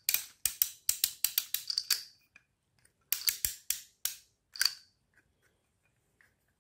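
3D-printed plastic wind-up car being wound by hand, its spring-motor ratchet clicking: a run of sharp clicks lasting about two seconds, a short pause, then a second run that stops a little past the middle.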